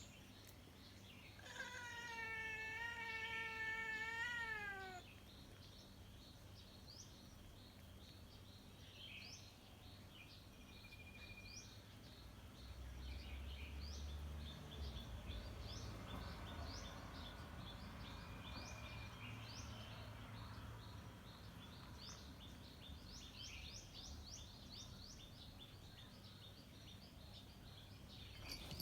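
A cat's single long meow a second and a half in, held for about three seconds and dropping in pitch as it ends.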